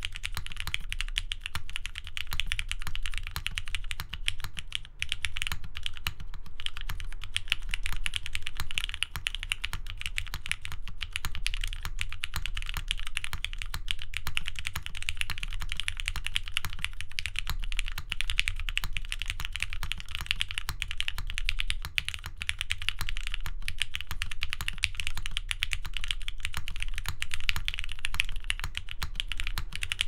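Steady, fast typing on a Phoenix R1 custom mechanical keyboard with a brass base, ABS plate and lubed Cherry MX Black linear switches. It makes a continuous stream of quick keystroke clacks.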